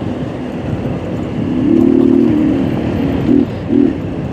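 Small motorcycle engine running under way at low speed on a dirt road, with wind and road noise on the rider's microphone; the engine note swells briefly a little over a second in.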